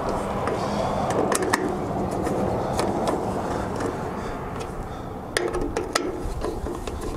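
Small metal clicks and taps as the Allis-Chalmers emblem badge is fastened onto the tractor's sheet-metal hood with a small hand tool, three pairs of sharp clicks over a steady background rush.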